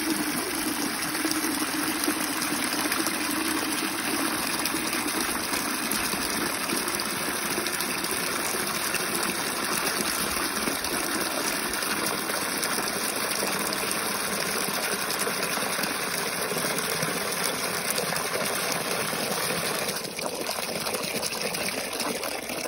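A stream of tap water pouring into a plastic bucket, a steady gushing splash as the bucket fills.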